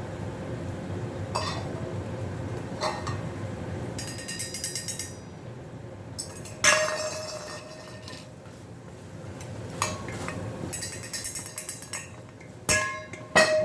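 Dishes, glass and cutlery clinking and clattering as they are washed and handled: a few single clinks, two bursts of quick rattling, and one louder clatter about seven seconds in, over a steady low hum.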